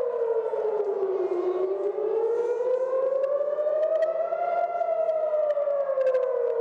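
Civil defense air-raid siren wailing, its pitch slowly falling, rising for about three seconds, then falling again: the warning of incoming rockets.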